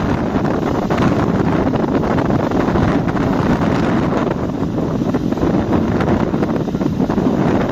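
Wind buffeting the microphone aboard a moving passenger ferry, over a steady low rush of the boat and the water.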